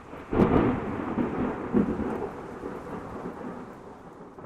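A loud boom about a third of a second in, then a long rolling rumble that slowly dies away, with a second smaller boom about a second and a half later.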